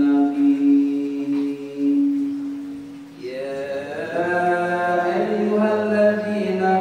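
A man chanting through a microphone in long drawn-out notes, in the melismatic style of Islamic recitation. He holds one steady note until about three seconds in, dips briefly, then climbs to a higher pitch and holds again.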